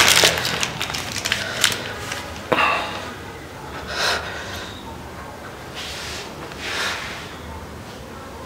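A young man crying: sobbing breaths and sniffs a second or two apart, louder at first and softer toward the end.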